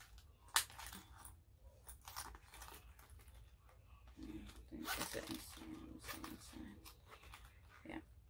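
Handling noises from a Louis Vuitton monogram canvas Recto Verso wallet being turned over and opened in the hands: rustling and scraping of canvas and leather, with a sharp click about half a second in.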